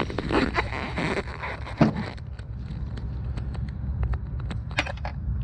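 Light clicks and rattling of small metal parts being handled under a car's hood, with one sharp click about two seconds in and a few more near the end, over a steady low rumble.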